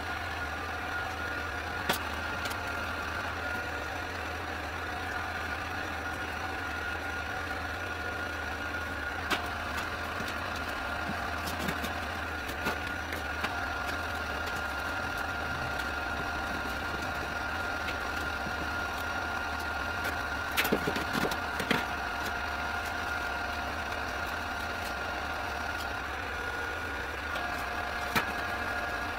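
A steady machine hum with a high, steady whine, and a few scattered sharp clicks and taps, with a short cluster of them about two thirds of the way through.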